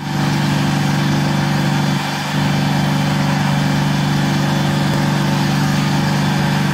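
Powermix Alpha plastering machine running: a steady mechanical hum from its motor and pump, which dips briefly about two seconds in.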